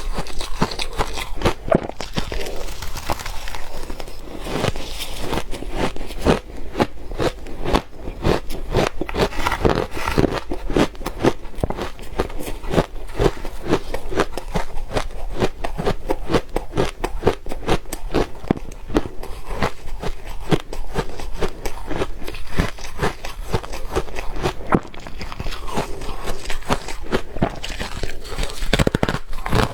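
Soft ice being bitten and chewed close to the microphone: a steady run of rapid, dense crunches.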